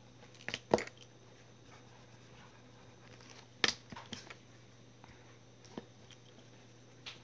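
Desk handling noises from a ballpoint pen and notebooks: a handful of sharp taps and clicks, the loudest about three and a half seconds in as the pen is laid down on the open notebook, then lighter taps as a small notebook is handled.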